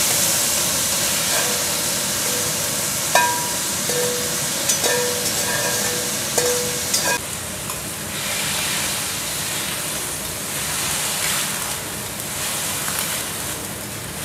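Asparagus and other vegetables sizzling as they are stir-fried in a stainless steel wok. A metal spatula strikes and scrapes the wok several times in the first half, making brief metallic rings.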